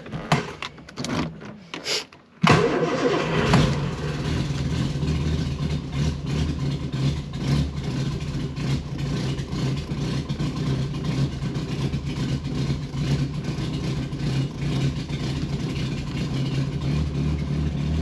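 A few short knocks, then the Triumph GT6's 2.0-litre straight-six starts about two and a half seconds in and settles into a steady idle. This is its first start after an oil change, run to build oil pressure.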